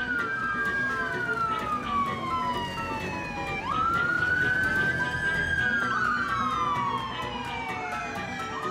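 Several police car sirens wailing together, each tone rising quickly and then falling slowly over a couple of seconds, the wails overlapping and out of step with one another.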